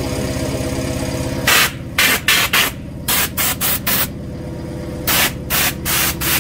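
Compressed-air blow gun fired in a series of short, loud hissing blasts, starting about a second and a half in, blowing packed soil dust out of a tractor's clogged air filter element: the clog the owner blames for the engine only sputtering and not starting. A motor runs steadily underneath.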